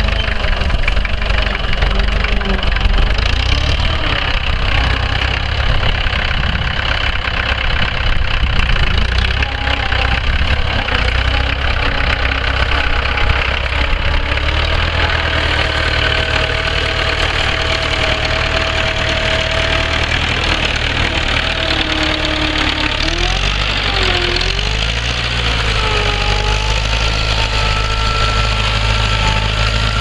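1956 International B-250's four-cylinder diesel engine running steadily under load as the tractor pulls a two-furrow reversible plough through the ground.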